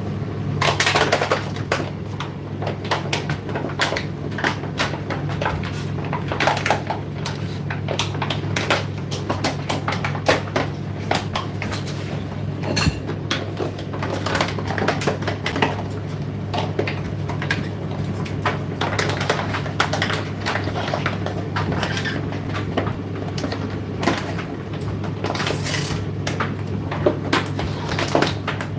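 Indesit IDC8T3 condenser tumble dryer running mid-cycle: a steady low motor hum with irregular clicks and knocks as the load tumbles in the turning drum.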